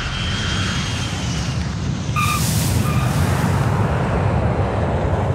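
Jet airliner landing: engine noise with a heavy low rumble and a faint high whine, then about two seconds in a burst of hiss and two short squeals as the main-gear tyres touch the runway, running on as a steady rolling rumble.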